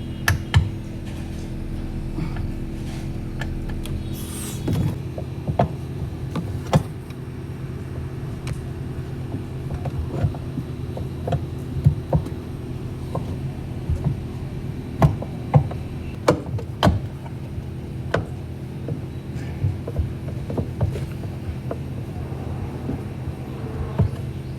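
Scattered sharp metallic clinks and knocks of hand tools working loose a washing machine's gearbox, over a steady low hum.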